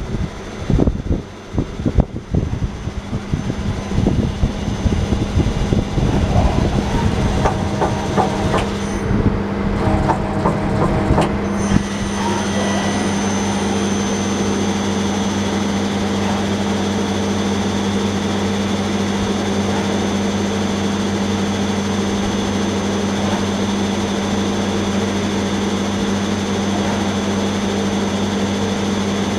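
Okuma LB-9 CNC lathe running. There are irregular knocks and clattering for about the first twelve seconds. After that comes a steady machine hum with a constant tone.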